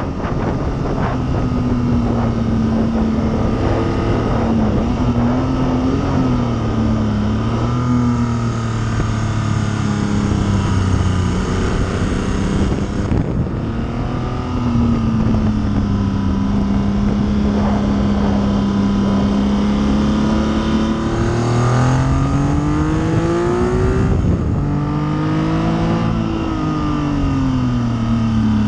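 Triumph Trident T160's three-cylinder engine heard from on board at speed, its note rising and falling with the throttle through the corners. About halfway through it briefly drops away, and a long climb in revs comes near the end.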